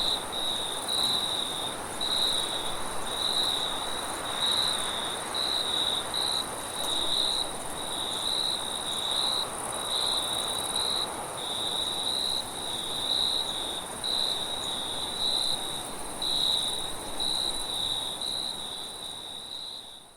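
Crickets chirping in short pulses about twice a second, over a steady high hiss and gusting wind. The sound fades out at the very end.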